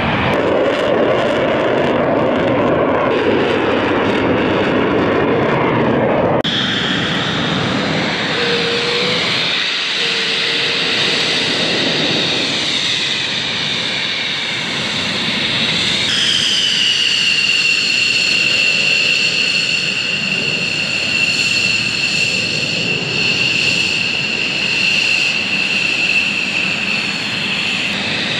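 F/A-18 Hornet's twin jet engines roaring at takeoff thrust as it lifts off. After an abrupt change about six seconds in, a high jet-engine whine with slight pitch glides takes over. From about the middle onward it is a steady high whine of F-15C fighters' jet engines at idle as one taxis.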